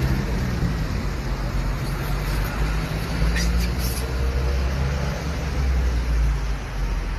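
Steady motor-vehicle and road-traffic noise: a continuous low rumble with a faint hum.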